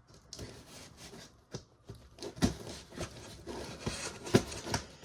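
A scanner's cardboard retail box being handled and turned over: rubbing and scraping with several sharp knocks, the loudest about halfway through and near the end.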